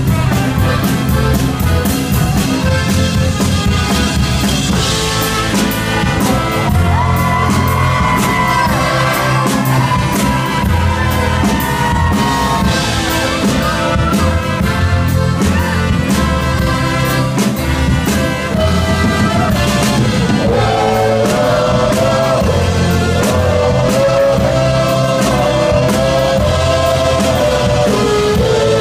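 Live country band playing an instrumental break: trumpets and accordion carrying the melody over acoustic and electric guitar and a steady drum beat.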